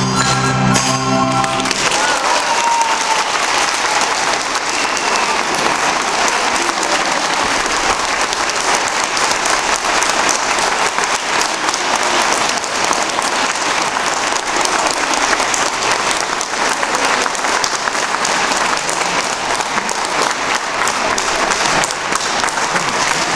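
A school orchestra's last notes end about two seconds in, followed by sustained audience applause.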